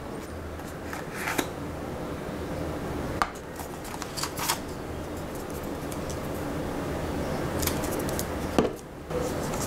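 Cardboard and plastic handling: a yellow cardboard accessory box and its insert being opened up while a coiled USB cable and a charger are taken out, giving scattered clicks, taps and rustles over a steady low hum.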